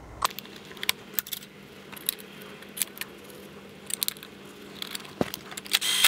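Irregular small clicks and light metallic clinks of an ignition coil, its plug connector and hand tools being handled as the coil is plugged back into the engine, with a quick cluster of clicks near the end.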